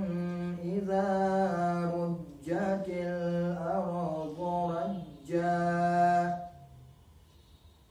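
A man reciting the Quran in Arabic in a melodic chanted style, drawing out long held notes that rise and fall. The recitation breaks off about six and a half seconds in, at a pause between verses.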